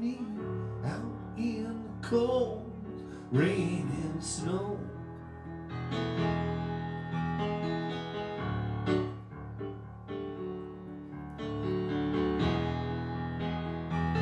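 Stage keyboard played through a PA system. There are gliding, wavering tones and a few sharp hits in the first five seconds, then steady held chords.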